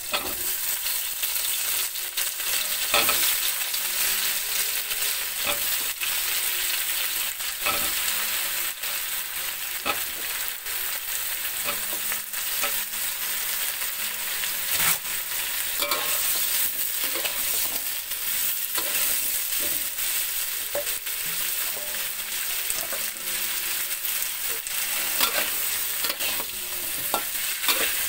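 Sliced green eggplant frying in hot oil in a metal wok with a steady sizzle, louder from the moment the slices go in. A metal spatula scrapes and knocks against the wok now and then as it is stirred.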